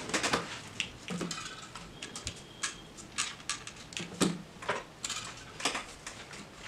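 Irregular plastic clicks and knocks as a small toy RC monster truck is handled and set down on a desk, with the loudest knock a little past halfway.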